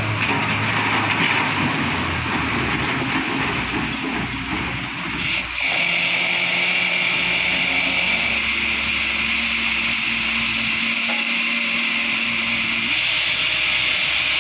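Heavy excavator running, a steady engine and machinery noise that changes abruptly about five and a half seconds in.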